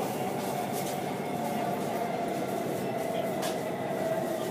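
BTS Skytrain running on the elevated track, heard from inside the carriage: a steady rumble with a motor whine that sinks slowly in pitch, and a few faint clicks.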